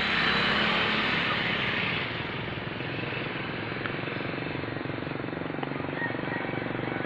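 Aircraft engines running with a fast, even pulsing beat. Louder for the first two seconds, then a little lower and steady.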